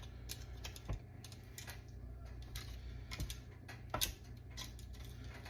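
Metal kitchen tongs clicking and tapping irregularly as a pork chop is handled and turned in seasoned flour, over a low steady hum.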